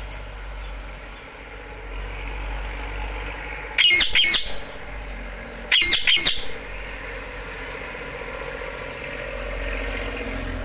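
Pet parrot giving two loud, harsh squawks about two seconds apart, over a steady low hum.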